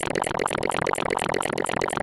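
Fast, dense synthesized electronic sounds with a rapid, even pulse of about eight to ten beats a second.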